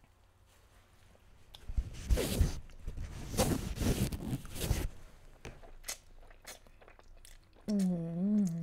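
A mouthful of fettuccine strands slurped off a fork, a loud wet sucking that starts about two seconds in and lasts about three seconds, followed by soft chewing clicks. Near the end, a wavering hummed "mmm" of enjoyment.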